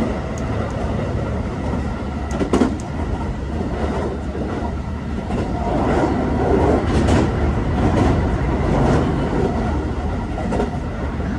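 Running noise inside a Hankyu 2300 series electric train at speed: a steady rumble of wheels on rail, with sharp rail-joint clicks. It gets a little louder, with more clicks, about six seconds in as the train runs over a river bridge.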